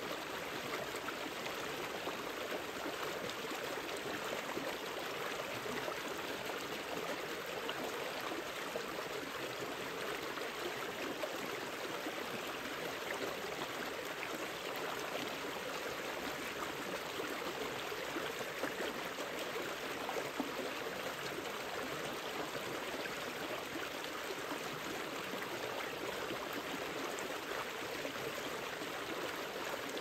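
Shallow stream running over a small drop between rocks and branches: a steady, even rush and splash of water.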